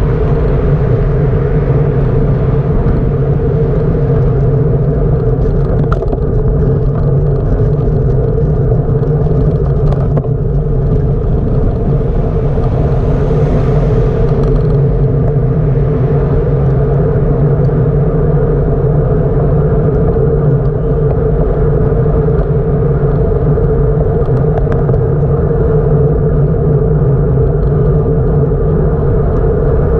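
Steady, loud rumble of riding noise from a bicycle ride: wind and road rumble picked up by the camera's microphone while riding. Around the middle a brief hiss swells and fades.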